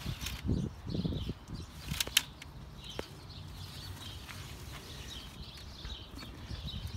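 Footsteps on a concrete driveway in the first second or so, then a few sharp knocks about two and three seconds in, with faint chirping of small birds in the background.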